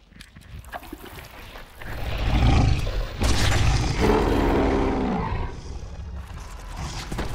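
A film werewolf's deep, loud roar in two long surges, starting about two seconds in, with a growling pitched stretch in the second surge before it fades.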